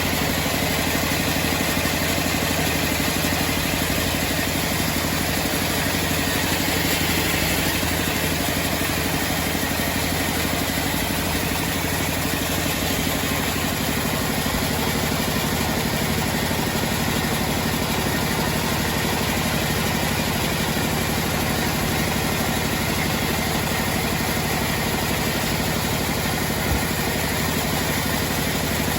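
Homemade band sawmill running steadily while sawing teak, with an even, unchanging machine drone.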